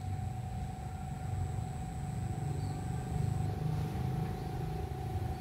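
A low, uneven rumble, with a thin steady whine above it.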